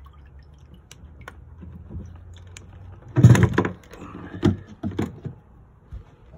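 Clicks and knocks of hand work on a fuel tank fitting as the Venturi transfer (jet) pump is worked off: light clicks at first, a loud clatter about three seconds in, then a few sharper knocks.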